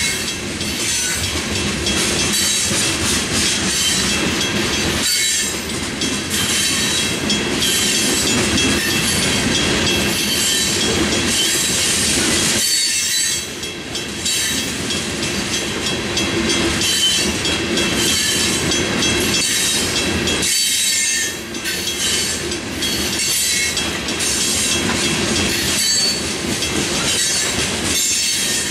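Loaded open-top aggregate hopper cars of a freight rock train rolling steadily past: continuous wheel and rail clatter with a high steady squeal from the wheels, dipping briefly twice.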